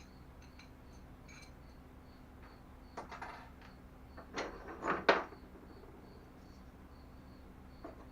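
Metal parts clinking and knocking as bolts and washers are handled and fitted, with a few brief clatters and a sharp knock about five seconds in as the loudest. A faint chirp repeats steadily under a low hum throughout.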